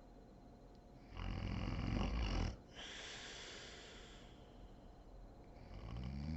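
A sleeping woman snoring. A loud snore lasts about a second, followed by a long breathy exhale, and the next snore starts near the end.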